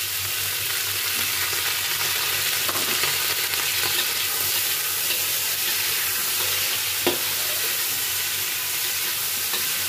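Chopped bell peppers sizzling in a hot steel wok with a little water in the pan, giving a steady hiss. A metal spatula stirs and scrapes against the wok now and then, with one sharper knock about seven seconds in.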